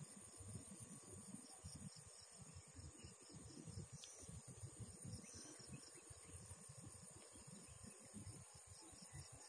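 Faint insect chorus: steady high buzzing with a rapid chirping pulse, over an uneven low rumble.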